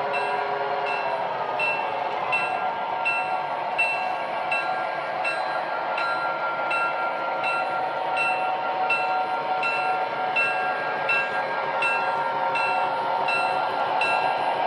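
Sound system of an MTH O-gauge Bessemer & Lake Erie F7 model diesel (Proto-Sound 3.0): a bell rings steadily, about three strokes every two seconds, over a steady diesel engine drone and wheel noise as the model rolls by.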